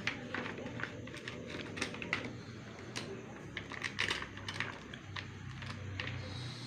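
Irregular crinkling and small clicks of a plastic bag being handled.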